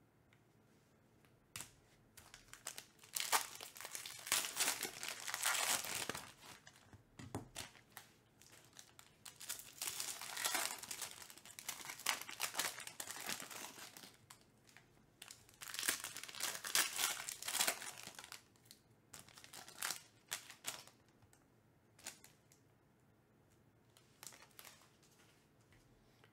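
Foil wrapper of a baseball-card pack crinkling and tearing as hands open it, in several long bursts of rustling with light clicks and card handling between them.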